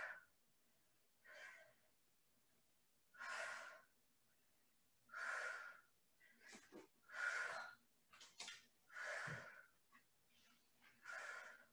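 A woman's breathing during single-leg glute bridge repetitions: faint, short breaths about every two seconds, six in all, in time with the hip lifts.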